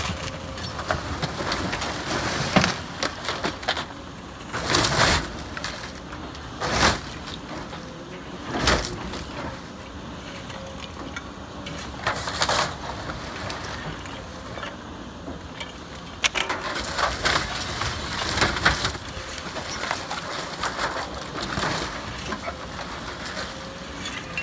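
Komatsu excavator's bucket smashing through a wood-frame house: wooden framing and debris cracking, splintering and crashing down. It comes as a string of separate crashes in the first half, then a longer stretch of cracking and breaking near the end.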